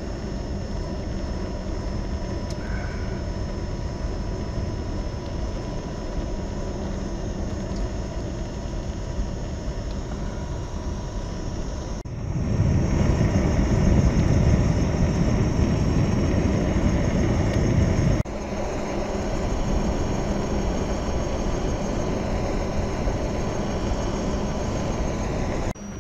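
Wind and road rumble picked up by the GoPro while riding a Gotway MCM4 electric unicycle, a steady noisy rush with a faint steady high tone above it. The rush grows louder about halfway through and drops back sharply a few seconds later.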